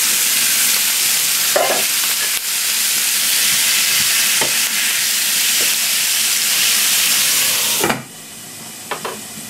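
Vegetable chunks sizzling loudly in frying-hot oil in a pan, stirred with a wooden spatula with a few light knocks. About eight seconds in, the sizzle drops sharply to a muffled hiss as a glass lid is put on the pan.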